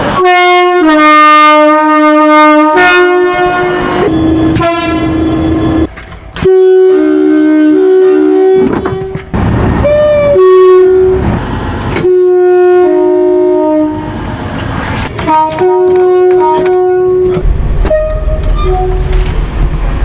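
A rapid series of two-tone train horn blasts, each a higher note followed by a lower one, with abrupt cuts between blasts. A low rumble comes in near the end.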